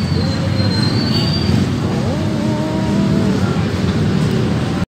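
Loud outdoor street noise from a phone microphone: a steady heavy rumble, with a thin high squeal in the first second or so and some wavering tones in the middle. It cuts off suddenly near the end.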